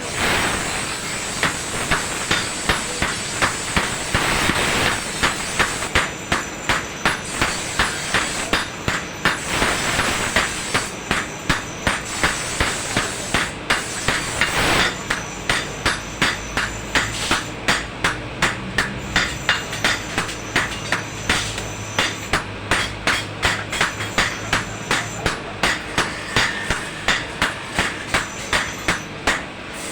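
Blacksmith's hammer striking metal on an anvil in a steady, even rhythm of about two to three blows a second while forging a dagger blade, over a steady hiss.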